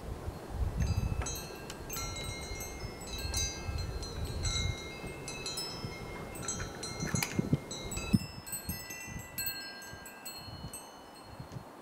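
Wind chimes ringing irregularly, many clear high tones struck at random and left to ring. A low rumble lies under them and drops away about eight seconds in.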